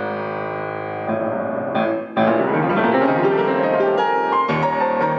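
Fazioli F212 grand piano being played. A held chord rings on, then a fast rising run sweeps up the keyboard about two seconds in, and a new chord with deep bass comes in near the end.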